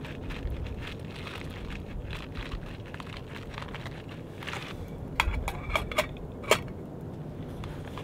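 Wood fire crackling in a small camp stove under a grill, with a cluster of sharp metal clinks about five to six and a half seconds in as a metal pot's lid is set on.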